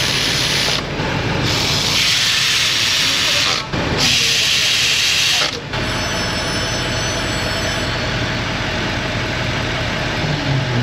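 Three loud bursts of hissing, each a second or two long with short breaks between, then a steadier, quieter hiss over a low hum.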